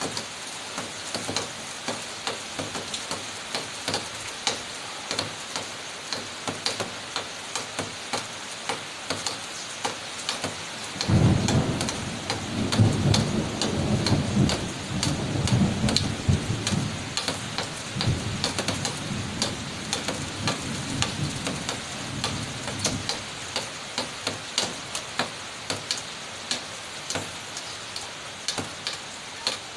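Heavy rain, hissing steadily, with drops ticking sharply every second or so. About a third of the way in a loud thunderclap breaks into a deep rolling rumble that lasts about twelve seconds before fading back under the rain.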